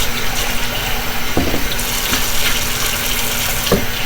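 Kitchen faucet running steadily into the sink as it is rinsed out, with a couple of brief knocks.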